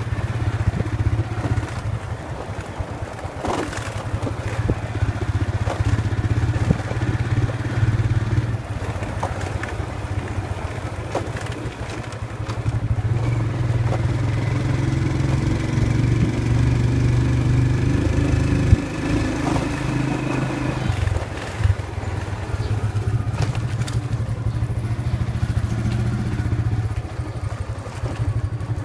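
Motorcycle engine running as the bike rides along, steady, getting louder for a stretch in the middle. Now and then there is a sharp knock or rattle.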